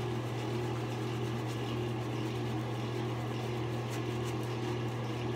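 A steady low mechanical hum in a small room, with the faint swish of a shaving brush lathering soap on the face.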